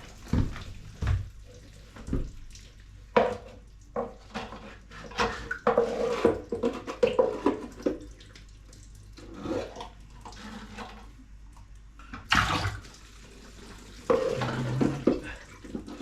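Water being bailed out of a toilet cistern with a small container: irregular splashes and pours, with a few knocks of the container against the cistern.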